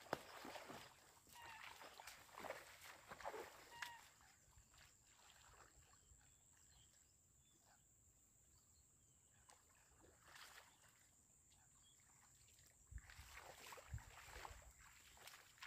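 Near silence: faint outdoor ambience with a few faint bird chirps in the first few seconds and some soft low knocks near the end.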